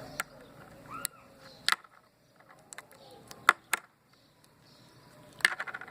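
Slime being pressed and poked, giving sharp sticky clicks and pops: a few spaced apart, then a quick run of them near the end.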